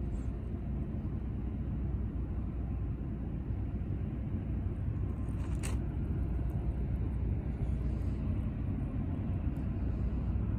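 Low, steady rumble of a distant diesel freight train approaching out of sight, growing slightly louder toward the end, with one brief click about halfway through.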